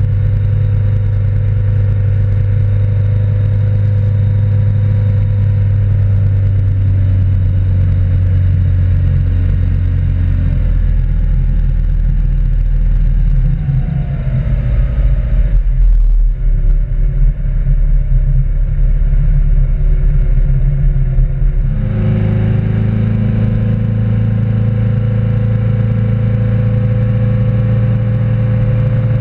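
Tow boat's engine running steady under way, with water rushing and wind on the stern-mounted camera. About halfway through the engine note drops and a rougher, uneven rumble of churning water takes over. Some seconds later the engine pitch steps back up to a steady run.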